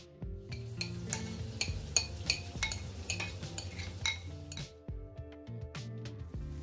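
A metal spoon scraping and clinking repeatedly against a glass bowl and glass dish as thick marinade is spooned out, with a pause a little after four seconds and a few more clinks near the end, over background music.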